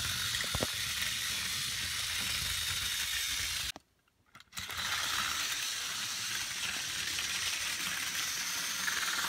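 Battery-powered TOMY Trackmaster toy train motors and gears whirring steadily as the engines run along plastic track. The sound cuts out briefly just before four seconds in, then resumes.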